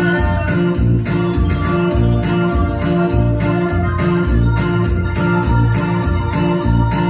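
Loud dance music led by an electronic organ, with held chords over a steady bass beat of about two pulses a second.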